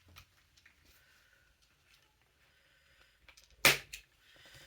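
Sewing scissors snipping doll packaging: one sharp snip about three and a half seconds in, among faint small clicks of handling.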